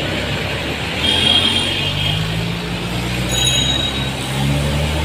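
Road traffic noise with a motor vehicle's engine humming close by, its hum strongest over the second half.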